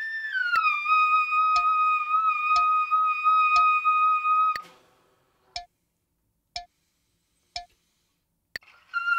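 Trumpet playing a slurred-fourths interval drill in the upper register. A high note slurs down a fourth about half a second in, is held steady for about four seconds, then stops. A metronome clicks once a second on its own through a bar's rest before the next note starts near the end.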